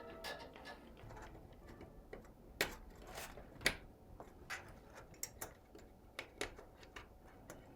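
Light, irregular clicks and taps of PC hardware being handled and fitted during a build, about a dozen spread unevenly.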